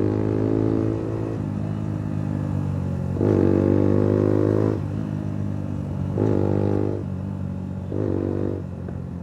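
Suzuki Gixxer motorcycle's single-cylinder engine idling through a loud aftermarket exhaust and revved three times, the first blip about three seconds in and longest, with the exhaust crackling and popping on the throttle.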